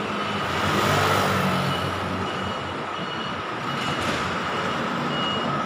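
Street traffic: a vehicle engine hums low for the first two seconds. From about halfway through, a short high electronic beep repeats roughly twice a second.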